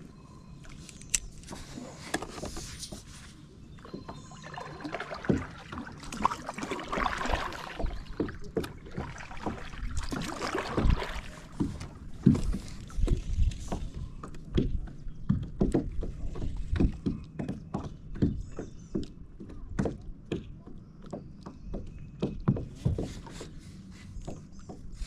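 Scattered knocks, clicks and bumps of fishing gear being handled in a plastic sit-on-top kayak, with a stretch of swishing noise in the middle.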